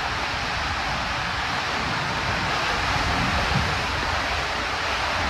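Steady rush of water down an enclosed water-slide tube during a ride, with a rough low rumble underneath.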